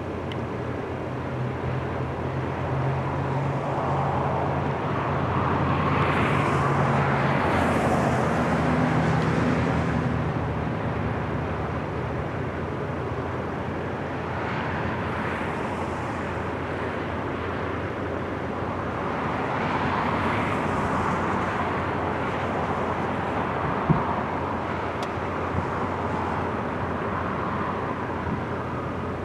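Four-engine turboprop military transport of the C-130 Hercules type landing: a steady propeller drone with low humming tones, swelling loudest about six to ten seconds in as it passes, then rising again around twenty seconds in as it rolls out along the runway.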